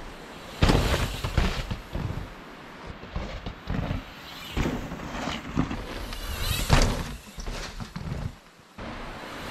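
Downhill mountain bikes riding past one after another on a rocky, gravelly trail: tyres crunching and scrabbling over stones with a rush of air as each rider goes by, several times, the loudest about half a second in.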